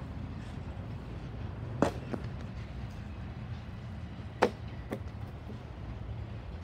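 Norfolk Southern double-stack intermodal freight train rolling past with a steady low rumble. Two sharp metallic clanks about two and a half seconds apart, each followed by a softer one.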